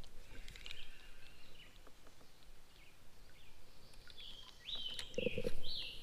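Songbirds singing: short whistled phrases with quick rising and falling notes, early on and again near the end. A few soft knocks about five seconds in, the loudest sound.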